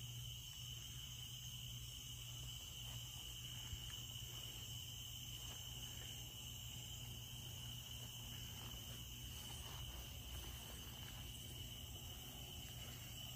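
Faint, steady chirring of crickets over a low, steady hum.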